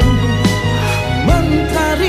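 Malay slow rock song playing: a band with steady bass, chords and drum hits, and a singer's voice coming in with a rising, wavering note past halfway.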